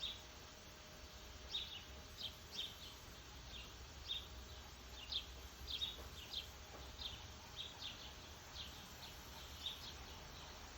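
Northern flicker giving a string of short, high chirping calls at an uneven pace, about two a second.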